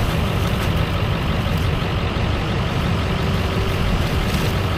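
Heavy diesel machinery running steadily with a deep, even low rumble, from a long-reach excavator at work beside a dump truck.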